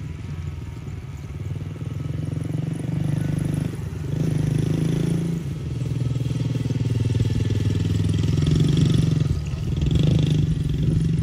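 Yamaha TT-R110 kids' dirt bike's small air-cooled four-stroke single-cylinder engine running while it is ridden at low speed, its note rising and falling with the throttle and louder from about four seconds in.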